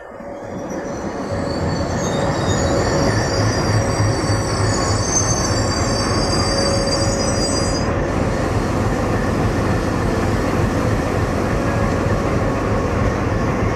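An Indian Railways diesel locomotive passes close by with its engine running, followed by passenger coaches rumbling over the rails; the sound swells over the first two seconds as it comes alongside. A high-pitched squeal of several tones rides over the rumble from about a second in and cuts off suddenly around eight seconds in.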